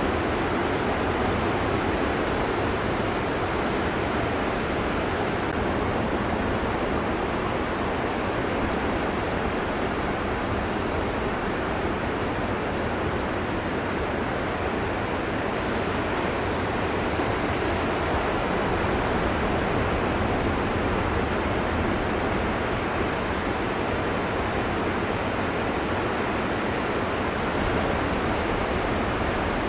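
Steady wash of ocean surf breaking, an even noise without pauses.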